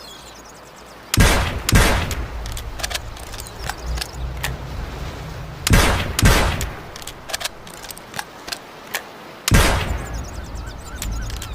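Sawed-off double-barrelled shotgun firing: two pairs of blasts, the two barrels about half a second apart, then another blast near the end. Each blast trails off in a short echo, with small clicks between the shots.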